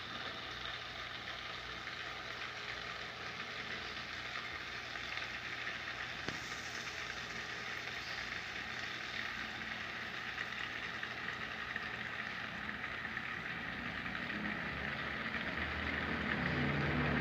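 Pump-fed water trickling and splashing into a small pond, a steady hiss-like patter that grows louder with a low rumble near the end.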